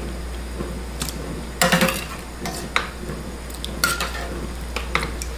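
Metal slotted skimmer clinking and scraping against a stainless steel sauté pan while blanched carrots are fished out of boiling water, a few separate clinks spread across the few seconds.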